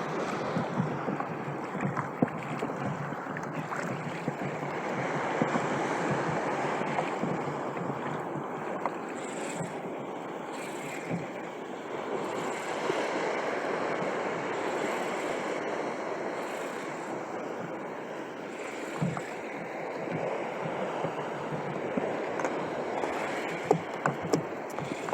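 Sea water washing and slapping around a kayak on open water, with wind on the microphone and a few light knocks.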